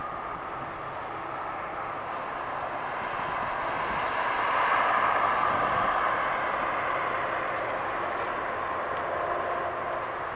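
A 2018 Chevrolet Corvette convertible with a 6.2-litre V8 driving past at low speed. Its running noise swells as it draws near, peaks about halfway through, then eases off as it moves away.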